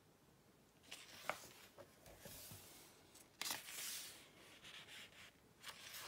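Faint rustling and sliding of paper as the pages of a book are handled and turned, in several short bursts, the longest about three and a half seconds in, with a few light clicks of the pages near the end.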